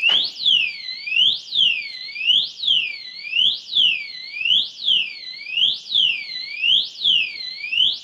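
REAPP 110 dB alarm disc lock sounding its siren after being moved vigorously: a loud electronic wail that sweeps up and down about once a second.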